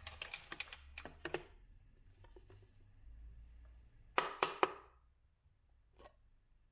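Light clicks and taps of hard objects being handled, then three sharp knocks in quick succession about four seconds in, and a single click near the end.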